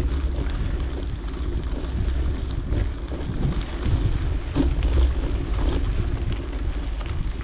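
Wind rushing over the microphone and the low rumble of a mountain bike rolling over a dirt trail, with a few faint knocks from the bike.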